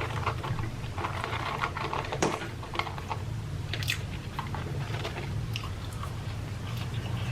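A person chewing food close to the microphone, with irregular clicks and crackles from the mouth over a steady low hum.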